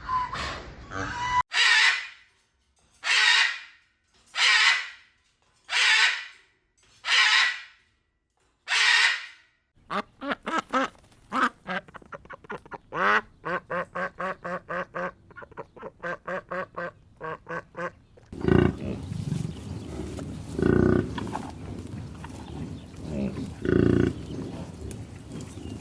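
Ducks quacking. First comes a run of about seven harsh, breathy calls a little over a second apart, then a fast string of short quacks about three a second. In the last third a rougher, lower, noisier sound takes over.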